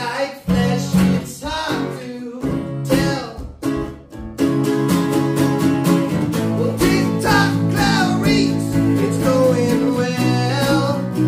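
Two acoustic guitars played together: strummed chords with picked melody notes over them. The playing fills out and grows steadier just after four seconds in.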